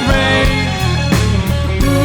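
Live rock band playing an instrumental passage: sustained electric guitar and keyboard notes over bass and drums, with a few drum hits.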